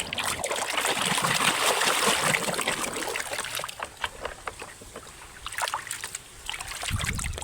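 Water splashing and trickling as a muddy toy figure is washed in water, busiest in the first three seconds and quieter after.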